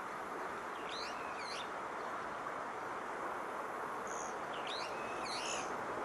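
Brown-eared bulbul calling: two short phrases of sharp, sweeping notes, about a second in and again near the end, over a steady background hiss.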